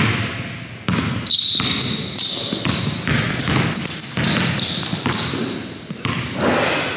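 A basketball being dribbled on a gym's hardwood floor during one-on-one play, with sharp knocks of the ball.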